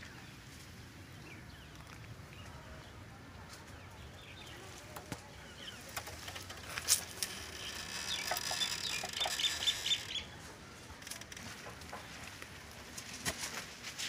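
Rustling and brushing of greenhouse tomato foliage, louder for a few seconds past the middle, with a few light clicks. A quick run of short high chirps comes just past halfway.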